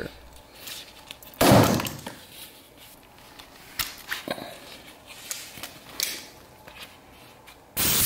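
Compressed-air hose quick-connect fitting being coupled: a loud short hiss of air about a second and a half in, a few sharp metal clicks from the fittings, and another burst of air hiss near the end.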